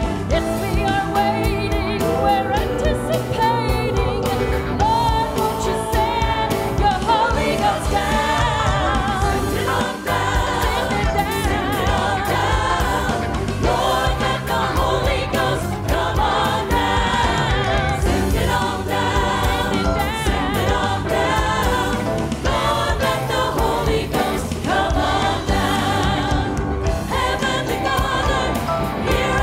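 A woman soloist singing a gospel song into a microphone, with a mixed church choir singing behind her and a band of piano, keyboards and drums accompanying.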